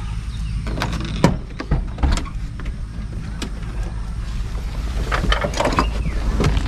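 Doors and seats of a Datsun redi-GO hatchback being handled as people climb in: a series of clicks and knocks, scattered at first and bunched together in the second half, over a low steady rumble.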